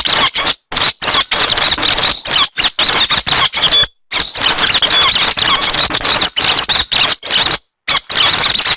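Recorded calls of the bird that Vietnamese trappers call 'hec xoan', used as a trapping lure: a rapid, dense string of high chirps that cuts out abruptly for a moment about a second in, about four seconds in and again near the end.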